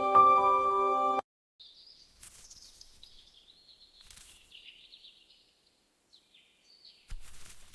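Soft ambient music with long bell-like tones cuts off about a second in. Faint birdsong chirps follow, with brief rustles, and a louder rustling noise comes near the end.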